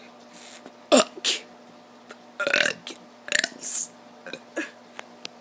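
A kid burping: several short burps one after another, the loudest about a second in.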